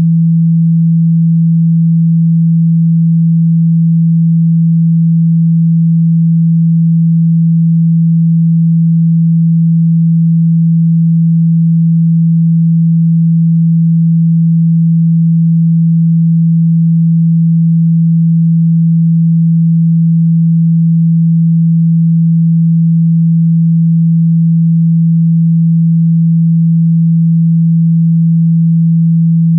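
Steady, loud 165 Hz sine tone, unbroken and unchanging: a water-ejection tone meant to be played through a phone speaker to shake water out of it.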